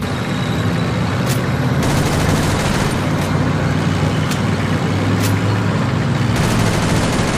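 Heavy truck engine running steadily, overlaid with four single gunshots and two short stretches of rapid gunfire.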